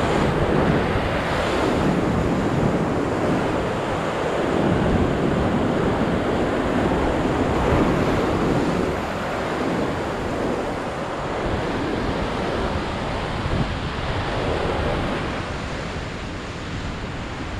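Ocean surf breaking against a rocky shoreline, a continuous rush of whitewater that swells and eases, with wind blowing across the microphone.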